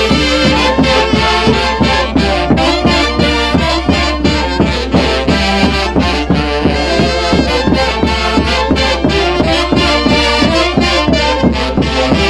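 Live Huancayo orchestra music: an instrumental passage with a melody over a steady, driving beat.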